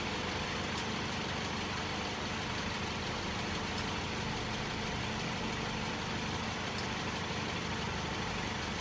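2004 Toyota RAV4 engine idling steadily with the air conditioning on and the AC compressor running, while refrigerant is being charged into the system. A faint high tick comes about every three seconds.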